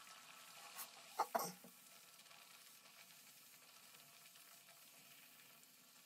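Hot oil sizzling faintly in a steel kadhai as a muskmelon-and-jaggery vada deep-fries over a low-medium gas flame. There are a few short clicks about a second in.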